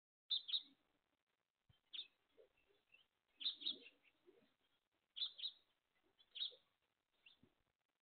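Faint short bird calls: about six brief chirps, roughly a second or a second and a half apart.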